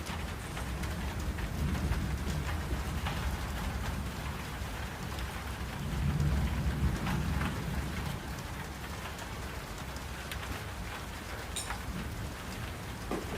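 Steady summer rain falling, with scattered drops pattering on surfaces. A low rumble swells about two seconds in and again, louder, around six seconds.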